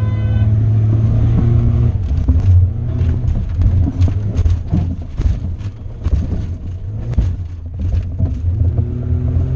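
Truck engine revving hard, heard from inside the cab, as the truck jolts over rough dirt obstacles, with many sharp knocks and rattles of the body and suspension through the middle of the run. The engine pitch climbs again near the end.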